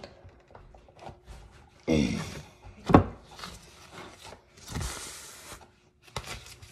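Cookware being handled at a stove: scraping and rubbing, a sharp knock about three seconds in, and a short rushing noise near the end.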